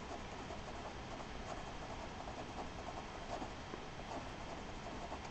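Pen writing on a sheet of paper: faint strokes over a low steady hiss.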